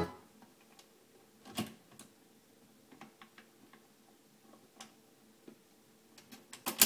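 1950s BSR record changer's all-mechanical return cycle: the tonearm lifts off the record and swings back to its rest, with scattered clicks and ticks from the mechanism over a faint motor hum. A quick run of sharper clicks comes near the end, the last the loudest.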